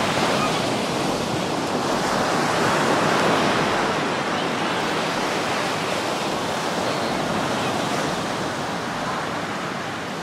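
Ocean surf breaking and washing up a sandy beach: a steady rushing noise that swells about three seconds in and eases off toward the end.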